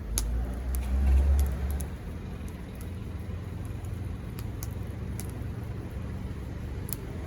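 Wood fire burning, with sharp, scattered crackles and pops about once or twice a second over a steady low rumble that is loudest in the first two seconds.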